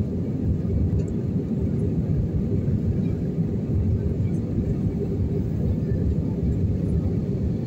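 Steady low rumble of an airliner's engines and rushing air, heard inside the passenger cabin during the climb after takeoff.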